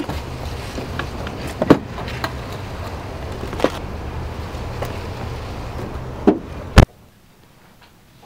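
Skateboards being set down into a car trunk: a string of sharp knocks and clunks of decks and wheels over a steady low rumble, ending with one loud thump about seven seconds in.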